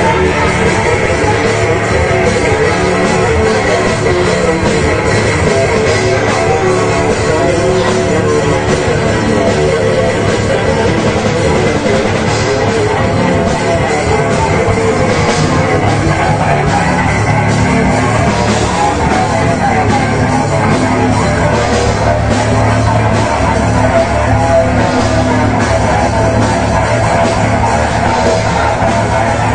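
Heavy metal band playing live, with distorted electric guitar and drums in a loud, dense, unbroken wall of sound.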